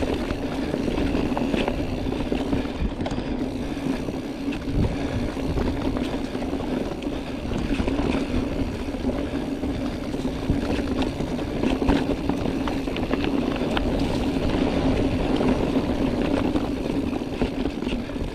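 Giant Trance Advanced mountain bike rolling fast down a dirt trail: tyre noise on the ground, with frequent knocks and rattles from the bike over bumps and a steady hum underneath.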